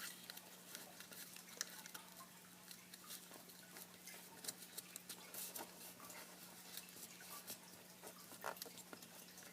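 Faint, scattered crackles and rustles of a square sheet of origami paper being folded and creased by hand, over a steady low hum.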